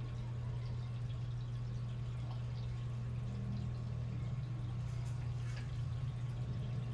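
A steady low hum with faint, scattered small ticks over it.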